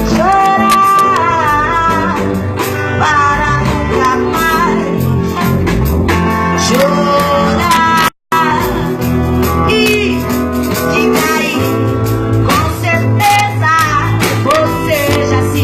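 Music: a song with a singing voice over instrumental backing. The sound cuts out completely for a split second about halfway through.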